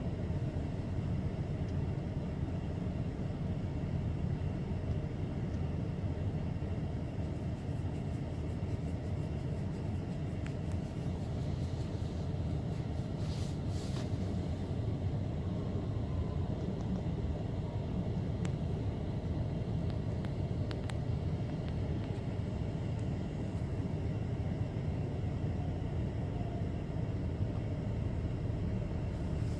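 Steady low rumble inside a stationary car's cabin, with a few faint clicks about halfway through.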